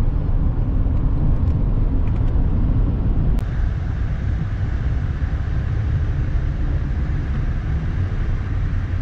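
Steady road and engine rumble inside a pickup truck's cab at highway speed. About three seconds in there is a click and the noise shifts slightly where the recording cuts.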